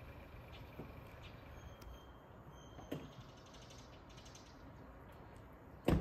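Quiet outdoor ambience with a few soft scattered clicks and faint high-pitched notes about two seconds in, then a single sharp knock near the end.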